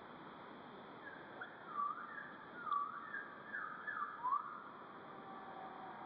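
A songbird singing a short phrase of about six clear, swooping whistled notes, starting about a second in and ending after about four and a half seconds, over a steady background hiss.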